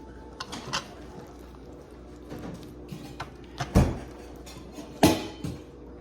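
Several sharp knocks and clicks, the two loudest about four and five seconds in, over a low steady background hum.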